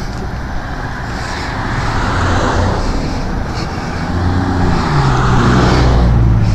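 Road traffic: vehicles passing by, their tyre noise swelling twice, with a vehicle engine's low hum growing louder in the second half.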